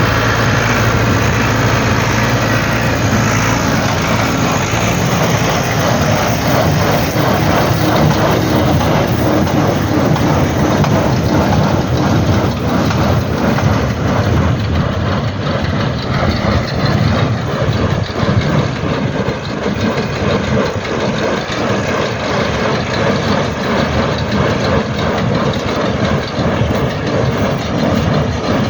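Shaktiman square baler running behind a tractor: the tractor engine runs steadily under load while the baler's mechanism clatters continuously as it makes bales.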